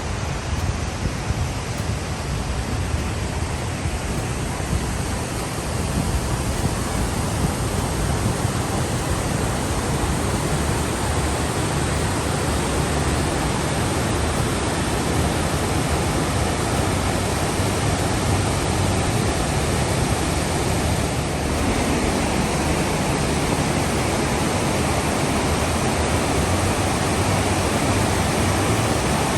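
Fukiware Falls rushing: a steady, loud wash of falling water that grows a little louder about six seconds in.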